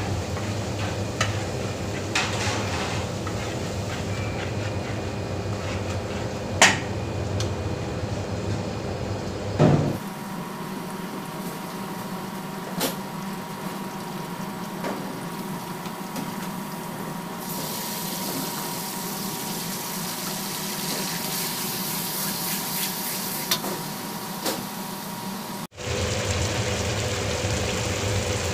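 Garlic and chili paste frying in hot oil in a large wok, a steady sizzle over the background rush of the kitchen, with a few sharp clinks of a metal spatula against the wok in the first part. The sizzle turns brighter and hissier past the middle.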